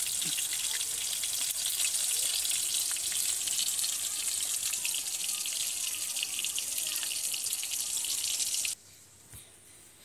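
Battered chicken pakoras deep-frying in hot oil in an aluminium kadai: a steady crackling sizzle that cuts off abruptly about nine seconds in.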